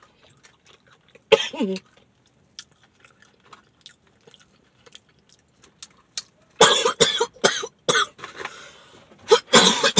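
A woman coughing while eating: one short cough about a second and a half in, faint chewing clicks, then a harder run of repeated coughs in the last few seconds. The coughing follows bites of extra-spicy fried chicken and comes from its heat.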